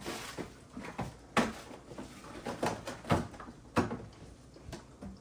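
Several sharp knocks and clacks, spaced irregularly a second or so apart: kitchen cupboard doors and items being moved and set down.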